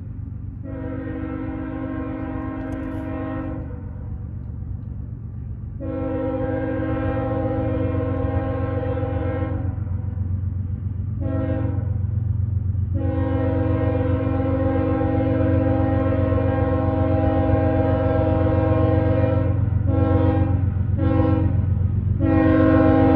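CSX GE ES44AH diesel locomotive's air horn sounding the grade-crossing signal: long, long, short, long, the last long blast broken by two quick toots near the end before sounding again. Under the horn the locomotive's diesel engine drones low and steady, growing louder as the train approaches.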